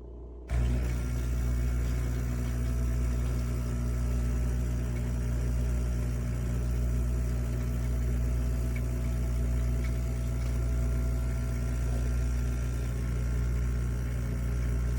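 Nesskoko 20-bar espresso machine's pump switching on about half a second in and running with a steady low hum as it pushes water through for a shot.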